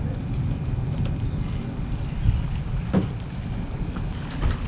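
Wind buffeting the microphone, a steady low rumble, with a few faint knocks.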